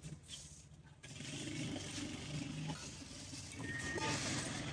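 Busy street ambience: a steady traffic hum with a noisy wash that grows louder about a second in. A short high tone sounds near the end.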